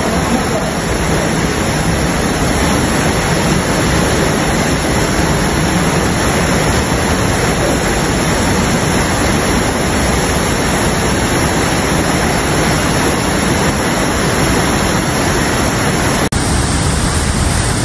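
Floodwater rushing, a steady loud rush of water. About sixteen seconds in it briefly dips and goes on with a slightly different sound.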